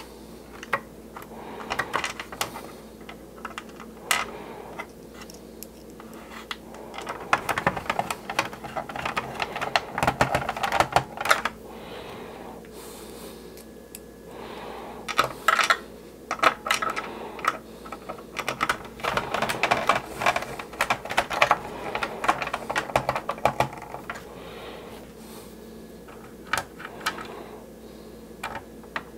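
Small screwdriver turning screws into the plastic hull of a 1983 G.I. Joe Skystriker toy jet: quick runs of small clicks and plastic rattles, with short pauses in between.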